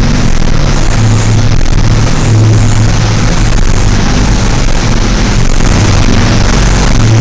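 KTM 450 dirt bike's single-cylinder four-stroke engine running under load inside a concrete tunnel, loud and steady, with a low engine note that holds for stretches of a second or so.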